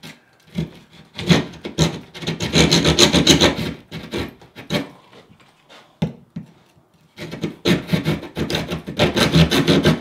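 Hand drywall jab saw sawing back and forth through 5/8-inch drywall, a rasping cut in quick strokes. It comes in two bouts with a lull between, the second starting about seven seconds in.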